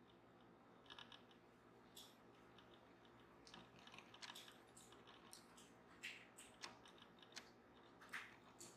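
Faint, irregular small clicks and taps of hands working yarn off the pegs of a circle knitting loom while casting off.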